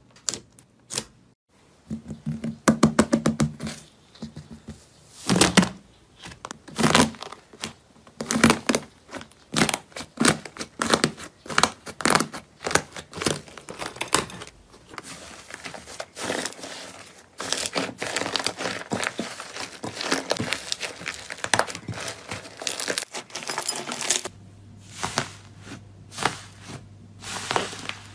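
Hands squishing and stretching slime, giving dense runs of sharp crackles, clicks and pops with short pauses between handfuls. A faint steady hum joins in near the end.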